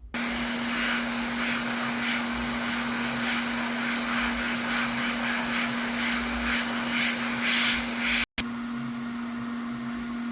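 Electric blower or fan motor running steadily: a constant hum under an even rushing hiss, cutting out for an instant about eight seconds in.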